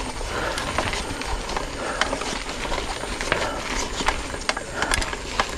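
Mountain bike riding over a dirt trail: steady rolling tyre noise with frequent irregular clicks and rattles from the bike as it bumps along.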